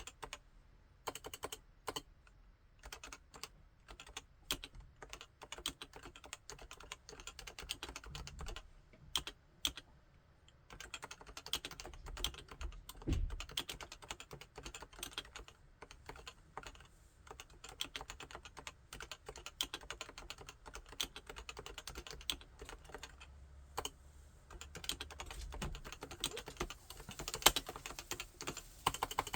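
Typing on a Topre Realforce 87U tenkeyless keyboard with electrostatic capacitive (Topre) switches. Separate, spaced-out keystrokes for about the first ten seconds, then steady fast typing with a short pause near the end.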